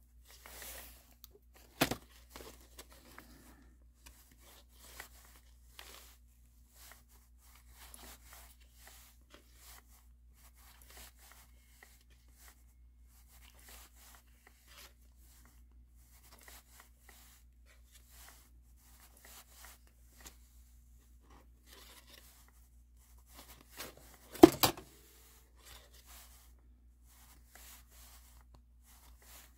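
Faint, scratchy rustling of thread being drawn through punched holes in a paper tag and of the paper being handled, in many short strokes. A sharp click comes about two seconds in, and a louder knock near the end.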